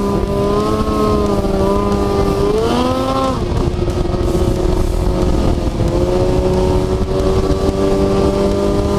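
Snowmobile engine running steadily at speed, its pitch rising briefly about three seconds in and dropping back, over a rough low rumble.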